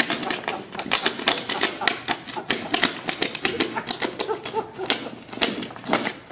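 Snow shovel scraping over packed snow and pavement in short, uneven strokes: a rapid, irregular clatter of scrapes and clicks.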